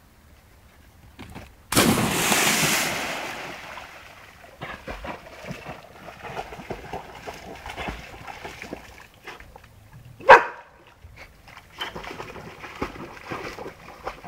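A dog swimming after a retrieve, paddling and splashing through water. About two seconds in there is one loud splash that fades away. About ten seconds in the dog gives one short, sharp bark.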